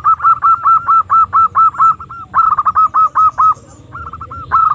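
Female zebra dove (perkutut) lure call: rapid runs of short, clipped cooing notes, about five a second, broken by brief pauses.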